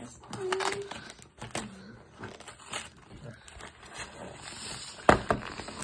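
Christmas wrapping paper crinkling and tearing as a present is unwrapped, in a string of short crackles, with a sharp knock about five seconds in that is the loudest sound.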